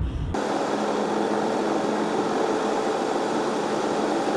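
Steady machine hum with one held low tone, beginning abruptly a moment in and running on unchanged.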